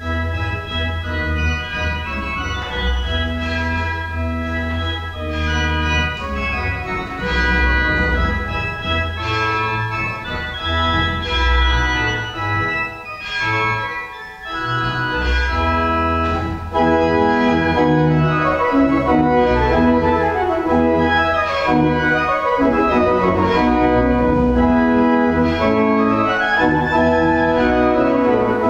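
Church organ playing slow, sustained chords over a deep pedal bass, thinning briefly about halfway through, then growing louder and fuller.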